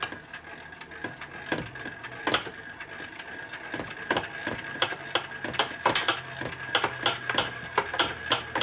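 Quick, uneven metallic clicks and knocks from a wrench being rocked back and forth by hand on the internals of a 1961 Harley-Davidson XLCH Sportster engine case. The stiff, freshly rebuilt assembly is being worked to free it up.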